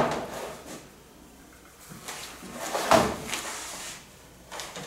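Metal baking sheet being slid and set down on a steel worktable: scraping and knocking, with one louder clatter about three seconds in and a few small clicks near the end.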